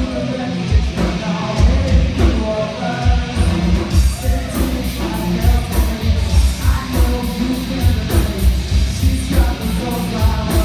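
Live rock band playing loud, with heavy drums and bass, guitar and singing; cymbals start keeping a steady beat about four seconds in.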